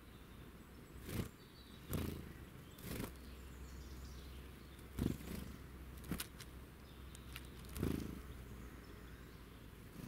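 About six short thumps at irregular intervals, over a faint steady outdoor background.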